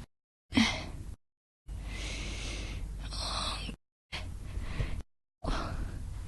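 A woman's breathing, in short spliced clips separated by dead silence: a sharp gasp about half a second in, a long breath of about two seconds, then two shorter breaths, each starting and stopping abruptly.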